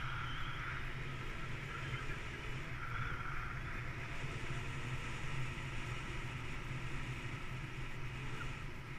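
Wind rushing over the microphone of a pilot-mounted camera in paraglider flight: a steady low rumble with a hiss above it.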